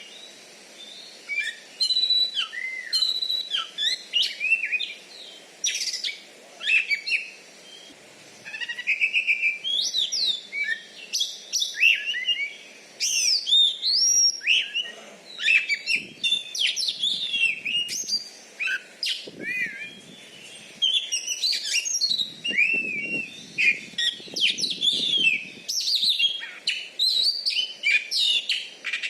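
Oriental magpie-robin (kacer) singing a long run of varied whistled phrases that glide up and down, broken by short pauses.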